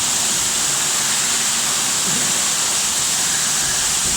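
Electric hand dryer blowing a steady, loud rush of air.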